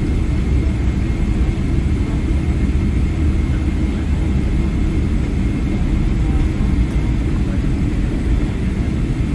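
Boeing 777-300ER cabin noise after landing: a steady low rumble from the GE90 engines and airframe heard inside the cabin, with a faint steady high whine.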